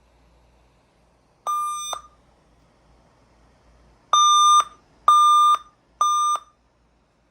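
A Dell computer beeping a startup error code: one half-second beep, then a pause, then three more beeps about a second apart, all on the same steady high tone.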